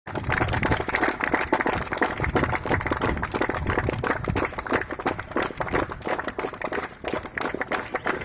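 A crowd clapping: many overlapping hand claps.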